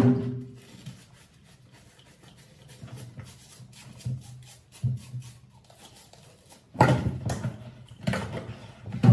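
A sharp clank with a short metallic ring against a stainless-steel kitchen sink, followed by quiet handling. About two-thirds of the way in, a busy run of scrubbing and clatter starts as a stiff brush works over things in the sink.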